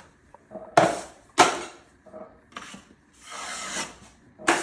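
A drywall knife scraping joint compound across a ceiling joint in about five separate strokes, with one longer stroke past the middle, as the mud is flattened over a butt joint.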